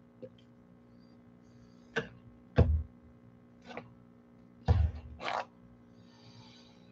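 Five knocks and light clunks of painting supplies being handled and set down on a wooden tabletop, two of them with a heavier thud. A short, faint scratchy rustle follows near the end.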